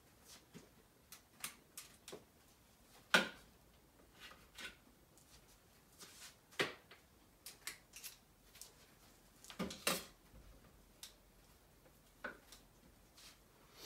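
Scattered clicks, taps and scrapes of a cookie scoop being worked, scooping a soft mixture out of a blender jar and releasing it onto a baking sheet. The sharpest clicks come about 3, 6.5 and 10 seconds in.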